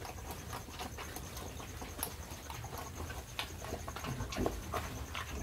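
Yorkshire piglets eating dry feed: irregular small crunching and clicking sounds of chewing and snouts working the feed.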